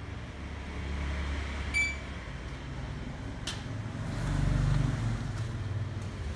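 Low engine rumble that swells to its loudest about four to five seconds in and then eases, with a short bright metallic ting about two seconds in.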